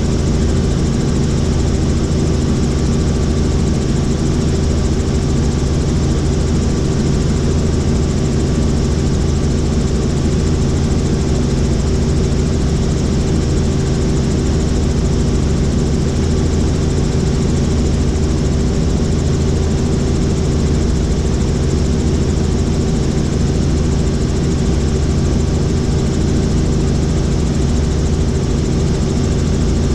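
Helicopter in flight, its engine and rotors running with a steady, unchanging drone made up of several low hum tones over a broad rush of noise.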